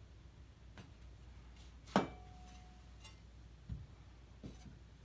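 A few quiet clicks and taps of a metal putty knife working fiberglass mesh drywall tape against the wall. About two seconds in comes a sharper click followed by a short ringing note.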